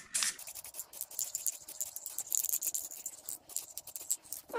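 Aerosol spray-paint can hissing: a short burst at the start, then one steady spray of about four seconds that cuts off near the end with a short knock.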